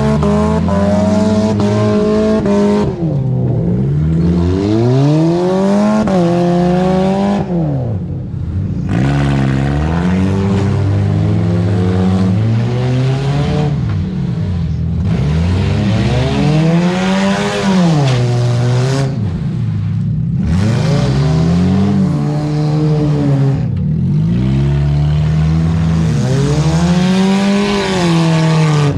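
Several demolition derby cars' engines revving and dropping back over and over as the cars manoeuvre, more than one engine at once, each rising and falling in pitch every few seconds.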